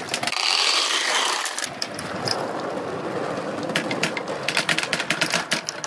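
Balls rolling fast through a bamboo-tube marble run: a continuous rolling rush, joined about two-thirds in by a quick string of hard clacks as the balls strike the track and each other.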